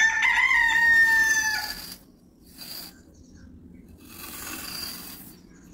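A rooster crows once, a single call of just under two seconds at the start. After it come two brief, softer scratchy sounds of a stick being drawn through fine sand.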